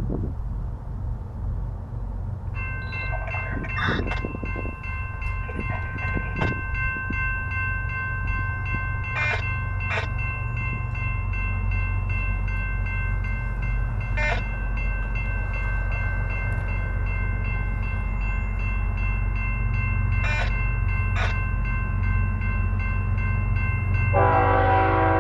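A grade-crossing warning bell starts ringing about two and a half seconds in and keeps ringing steadily over the low rumble of approaching diesel locomotives. Near the end the lead GE ES44DC locomotive's air horn comes in, louder than the bell.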